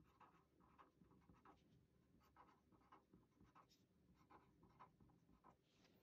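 Faint scratching of a pen writing on paper: many short strokes in quick succession, as a short word is written out three times.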